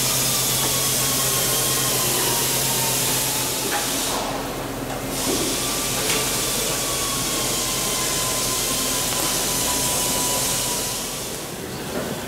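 Polythene masking sheet being peeled and pulled off a freshly painted aircraft fuselage panel: a long tearing, rustling hiss that breaks off for about a second some four seconds in, then resumes and fades near the end.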